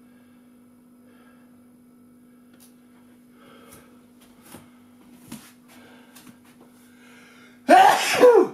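A brief loud strained vocal cry with a falling pitch near the end, after faint rustling and a few soft knocks over a steady low hum.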